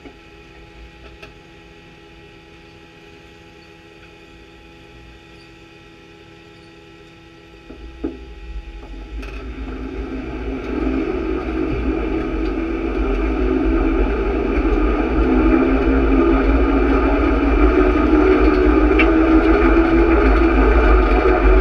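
Pulling tractor's engine running steadily at low level, then about eight seconds in it grows steadily louder as the tractor gets under way, with a single knock near the start of the rise.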